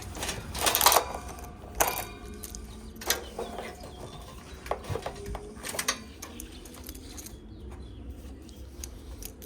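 Scattered knocks, clicks and scrapes from hand work as the old condenser fan motor and its wiring are pulled out of the unit, busiest in the first six seconds and quieter after.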